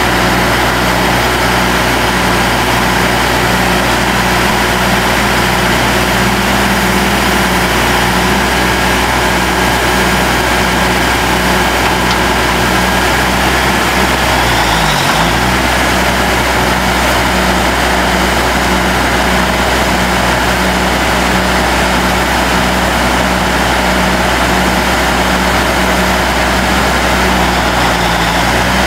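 1986 Ford LTL 9000 dump truck's diesel engine idling steadily with a regular low pulse, while its hydraulic hoist raises the dump bed; the note dips briefly about halfway through.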